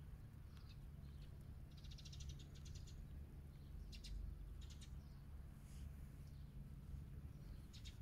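Faint bird chirps, with a short rapid trill about two seconds in, over a low steady background hum.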